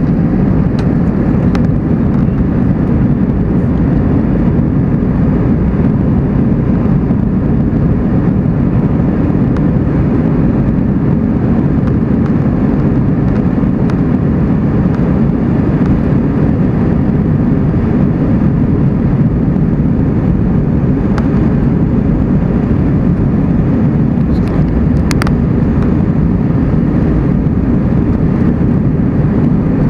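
Airbus A320 jet engines running at high power during the takeoff roll, heard inside the cabin by a window over the wing as a steady, loud rush.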